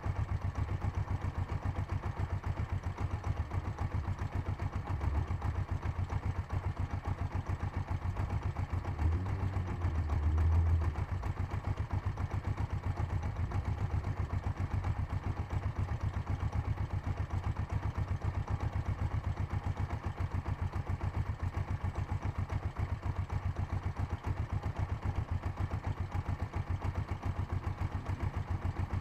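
Kawasaki GPZ500 engine idling with a steady, rapid pulse and a brief swell in level about nine to eleven seconds in. Its knock is taken by the owner to come from the gearbox, cause unknown.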